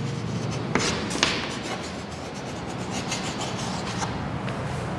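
Chalk writing on a chalkboard: a steady scratching of strokes, with a couple of sharper taps about a second in.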